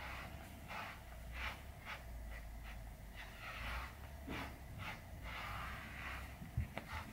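A slicker brush drawn through a cat's fur in quick repeated strokes, about two a second, each a short swish. A light knock near the end.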